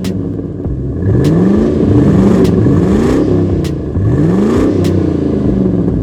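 Engine sound effect revving up again and again in rising sweeps, about four times, over a steady engine drone, with a few sharp clicks.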